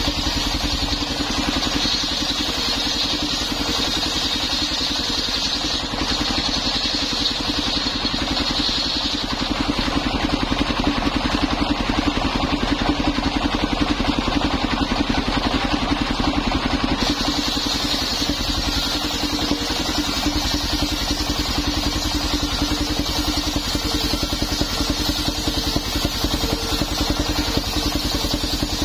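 Belt-driven circular saw on a mobile sawmill rig, its stationary engine running steadily while the blade spins and cuts old coconut wood. A high whine fades for several seconds partway through while the sound grows slightly louder, then returns.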